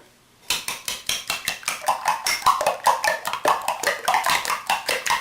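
Eggs being beaten in a bowl, a utensil clicking rapidly against the bowl's side at about five or six strokes a second, starting about half a second in.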